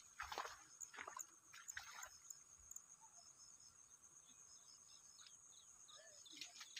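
Near silence: faint high chirping of insects, with a few soft rustles in the first two seconds.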